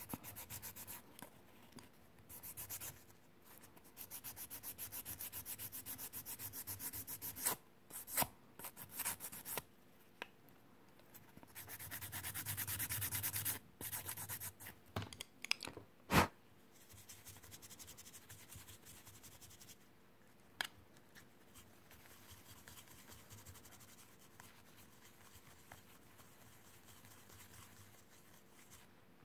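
A flat hand file scraping back and forth across a cast resin cabochon, rubbing the dried nail polish off its raised relief. The strokes are quick and come in spells, loudest in the first half, with a few sharp clicks, then grow faint.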